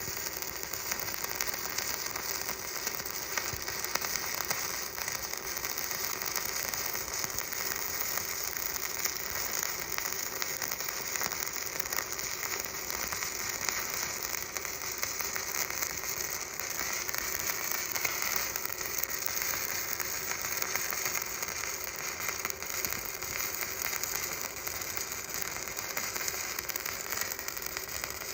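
Stick-welding arc burning steadily, a continuous dense crackle and sizzle.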